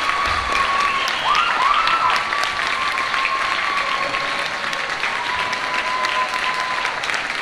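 Audience applauding: dense, steady clapping, with a few long held high calls from the crowd above it, one swooping up and down about a second and a half in.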